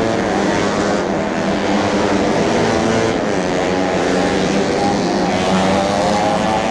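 Tuned four-stroke underbone racing motorcycles running at high revs, their engine notes shifting in pitch, with one rising near the end.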